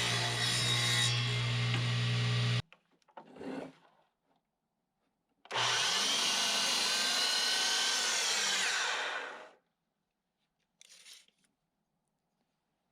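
Electric power saw running and cutting wood board in two runs. The first cuts off abruptly about two and a half seconds in. The second starts about five and a half seconds in and runs down about four seconds later.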